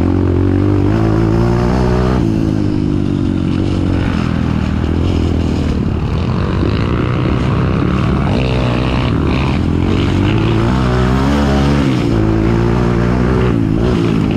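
Kawasaki KLX trail bike's engine pulling through the gears while riding. The revs rise and drop again and again with throttle and gear changes.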